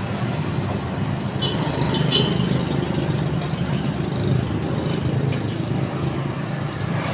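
A motor engine running steadily, with two light metallic clinks about one and a half and two seconds in.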